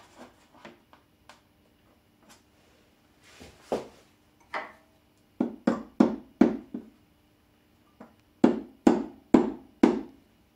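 A soft-faced mallet with yellow plastic heads taps a reindeer antler down into the rim of a large wooden bowl. There are a few faint clicks of handling first, then two quick runs of about five ringing knocks each.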